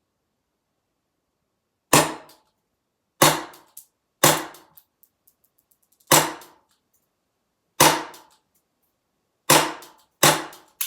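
WE Colt .25 Junior gas blowback airsoft pistol firing single shots: about eight sharp cracks, the first about two seconds in, then one every second or two at an uneven pace, each with a short tail as the slide cycles.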